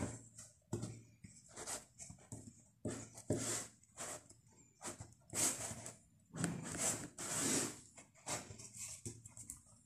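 Fingers pressing and rubbing shortcrust pastry into a metal cake tin, a string of irregular short scuffs, with hands brushing against the tin's sides and rim.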